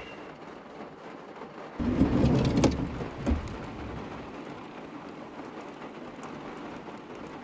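Heavy rain pouring down steadily in a downpour. About two seconds in, a louder low rumble with a couple of sharp knocks lasts about a second and a half before the even rush of rain returns.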